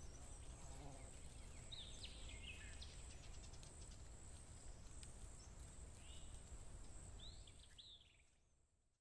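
Faint outdoor ambience of a low rumble and hiss, with a few short bird chirps about two seconds in and again near the end. It cuts off to silence about eight seconds in.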